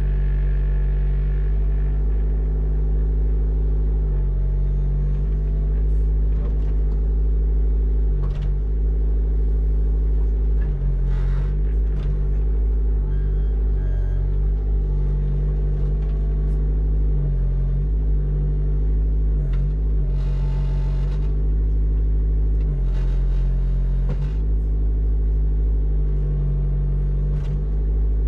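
Mini excavator's engine running steadily, its note shifting several times through the stretch, with two short bursts of hiss about two-thirds of the way in.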